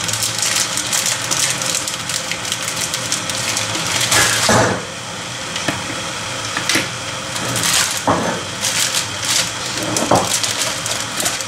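A pot of salted water heating on a stovetop, hissing steadily with scattered crackles as it comes up to the boil. A louder, brief noise comes about four seconds in.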